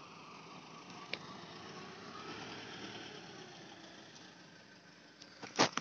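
A pickup truck's engine and tyres as it drives slowly past, the sound swelling and then fading. There is a sharp knock near the end.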